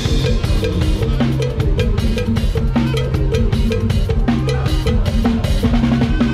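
Drum kit played in a fast Isan lam sing groove with the band: rapid, dense kick and snare hits over a steady bass line.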